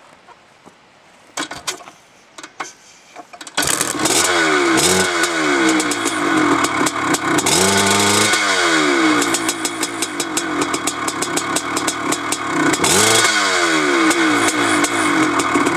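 Maico 490 two-stroke single-cylinder dirt bike engine: a few clicks and knocks, then the engine fires about three and a half seconds in and runs loudly, revved up and back down several times.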